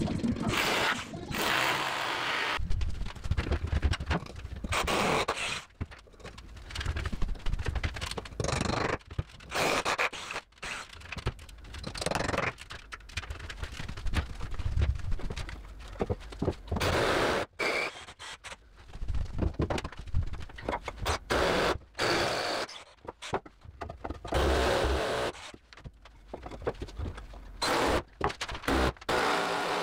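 Irregular scraping and knocking of hands-on building work with timber wall framing, in short bursts with brief pauses.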